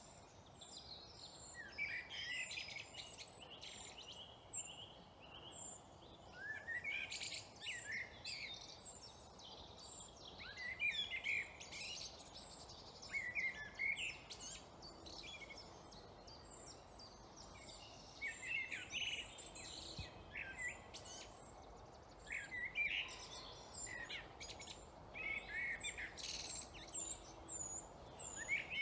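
Songbirds of a British woodland singing in the dawn chorus: several birds' phrases overlap every second or two, with repeated high, thin notes throughout.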